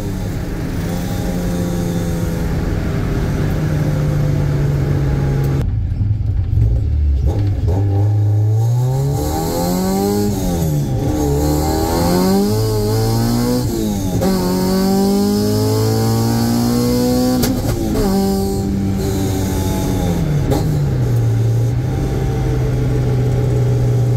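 The Honda Civic's H23A/B16 (H2B) swapped four-cylinder engine, heard from inside the cabin while driving. After a few seconds of steady running, its pitch climbs and falls several times with sudden drops as it is revved up and shifted. It then settles into a steady low drone near the end.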